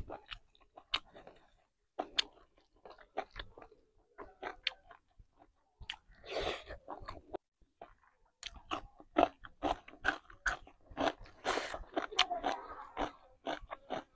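Close-miked chewing and crunching bites of food: a person eating masala chicken with rice and raw green beans. The sharp crunches come thickest in the middle and the second half.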